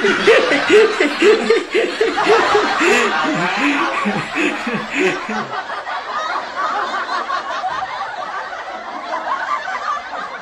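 Laughter: a run of short, rhythmic laughs in the first half, easing into softer giggling that fades toward the end.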